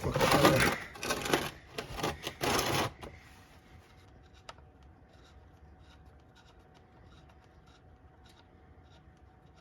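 Loud rustling and scraping close to the microphone for about three seconds, as the phone is handled and moved under the car. After that it goes faint, with a steady low hum and a few small clicks.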